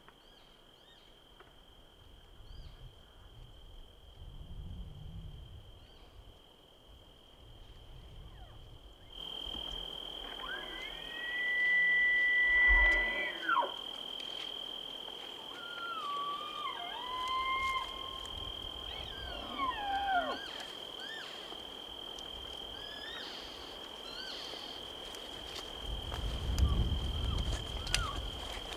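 Bull elk bugling during the rut: a high whistle that rises, holds and then drops away, about ten seconds in. It is followed by lower stepped whistles and falling glides.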